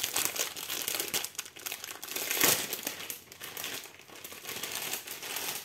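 Parcel packaging crinkling and rustling as it is handled, in a rapid run of crackles with the loudest crinkle about two and a half seconds in.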